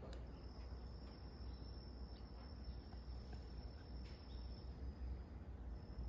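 Quiet room tone: a steady low hum under a faint, steady high-pitched trill that drops out briefly near the end, with a single sharp click right at the start.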